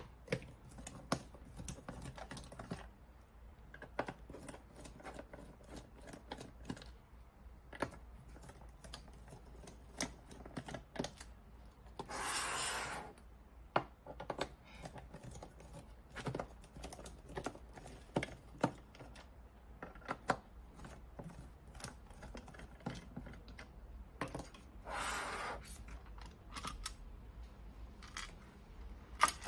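Scattered plastic clicks and taps as the back housing of a LAUNCH X431 Pro Mini scan tablet is worked open and its snap clips let go. Two rough scrapes of about a second each come a little before midway and again near the end.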